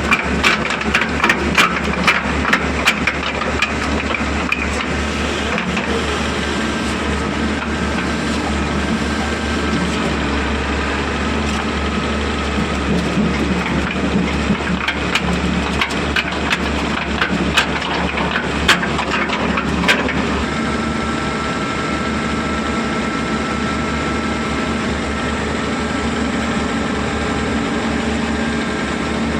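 Heavy diesel construction machinery running steadily with a low rumble, with many sharp clicks and knocks over roughly the first twenty seconds, then a steadier run with a thin held whine.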